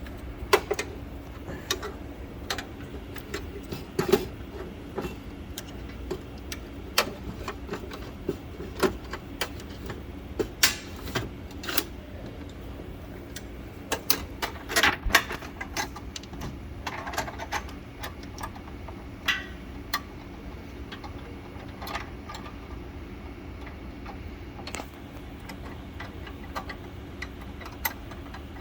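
Scattered clicks and metallic knocks at irregular intervals as a projector lamp is fitted by hand, with a cluster of louder knocks midway, over a steady hum of running projectors.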